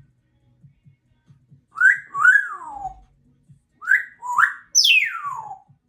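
Congo African grey parrot whistling: two short gliding notes, then after a pause three more, the last a long whistle falling steeply in pitch.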